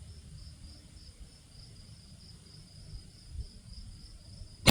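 Insects chirping steadily with an even, fast pulse, over a faint low rumble. At the very end comes the sharp crack of a single .22 LR rifle shot.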